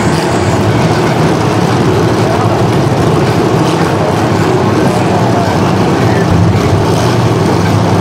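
Demolition derby car engines running, a loud steady drone of several big engines idling and moving on a dirt arena floor.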